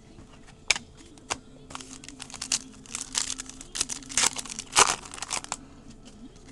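A Donruss Elite football card pack's wrapper being torn open and crinkled by hand. Two sharp snaps come first, then a dense run of crinkling that stops about five and a half seconds in.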